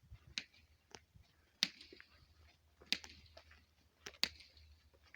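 Pony making sharp clicking sounds as it walks: the loudest clicks come about every 1.3 seconds, in time with its stride, with fainter clicks between.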